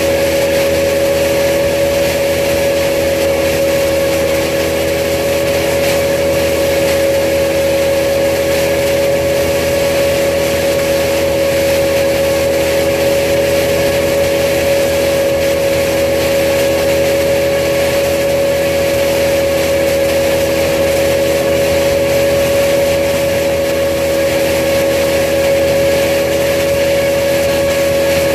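Wood chipper's engine running loud and steady at constant speed, with an even hum and no change in load.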